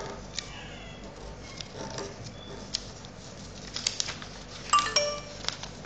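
A sheet of origami paper being folded and creased by hand, with scattered crisp crinkles and taps. A brief ringing tone sounds about five seconds in, the loudest moment.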